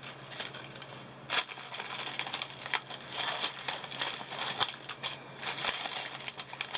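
Small plastic packets crinkling and rustling as they are handled and sorted. Irregular crackles start about a second and a half in and keep coming.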